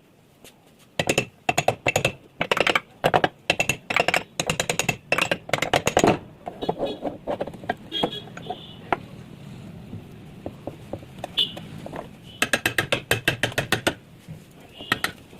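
Mechanical clicking in fast runs of sharp clicks, with a rougher, steadier stretch in the middle, from hand work on a water pump.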